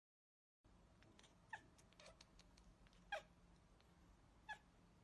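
Faint, short, high mews from a cat, about four spaced a second or so apart, after a moment of dead silence at the start.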